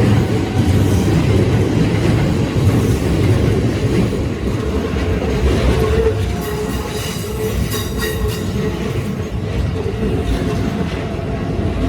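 A Keikyu Line electric train rumbling past over the level crossing, with a run of wheel clacks over the rail joints about halfway through and some wheel squeal.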